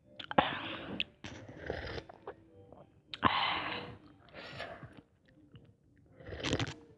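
Ramen noodles being eaten close to the microphone: chewing and mouth noises in about five short bursts, each under a second.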